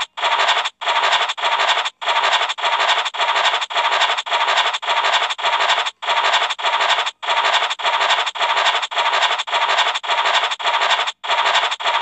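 Scratch-off sound effect of an online scratch card game: a short scratching hiss repeated about twice a second as the cells are uncovered automatically one by one, with a few brief pauses.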